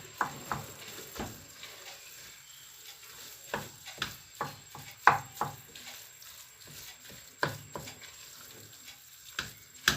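Minced meat frying with onion and celery in a pan, giving a faint sizzle, while a spoon stirs it and knocks against the pan about ten times.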